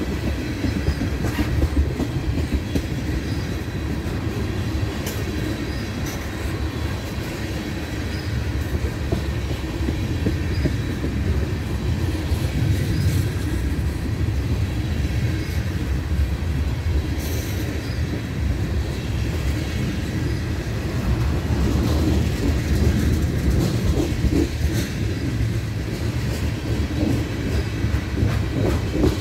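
A freight train of empty ethanol tank cars passes close by, its steel wheels rumbling steadily on the rails, with occasional knocks and clacks from wheels and couplers.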